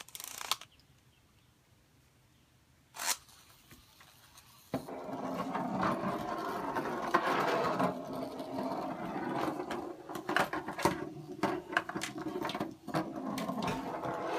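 Tomy Break Dancer spinning-top toy: a short rasp of its toothed plastic ripcord near the start and another about three seconds in, then, from about five seconds, the plastic figure spinning and rattling on a wooden tabletop, with frequent clicks and knocks as it wobbles.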